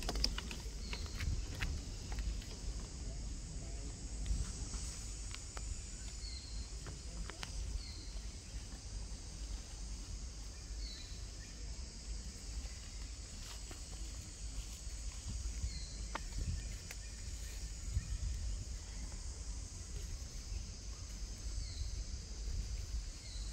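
Forest ambience: a steady high drone of insects over a low rumble, with a short high chirp every few seconds and a few faint clicks near the start.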